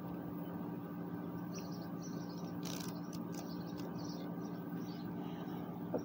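A steady low mechanical hum with fixed pitches. About halfway through there is a short hissy burst, followed by a few faint clicks, with some brief faint high chirps scattered through.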